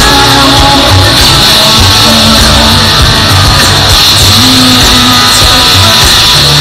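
Live rock band playing loud through a festival PA: amplified electric guitars, bass and drums.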